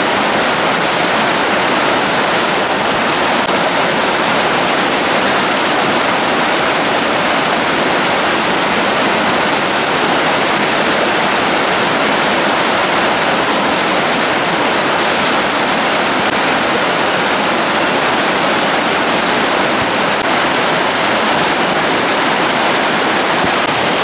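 Fast snowmelt mountain stream running as white water over rocks close by, a loud, steady rushing.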